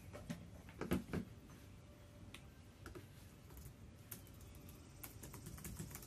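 Typing on a keyboard: irregular key clicks, with two louder knocks about a second in, as a search is typed in.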